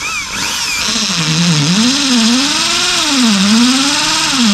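Electric power tool cutting, its motor speed sagging and recovering several times as the blade bites into the material.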